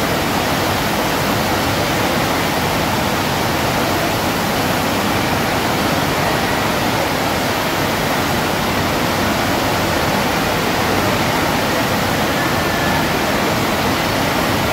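Steady rush of water from a FlowRider surf simulator: a thin sheet of water pumped at speed up and over the padded slope, running loud and even throughout.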